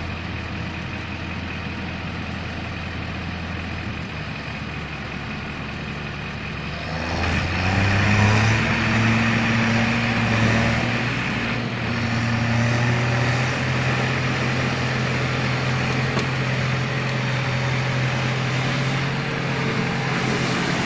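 Heavy truck engine running steadily. About a third of the way in the sound abruptly grows louder and the engine note steps up a little in pitch, then holds.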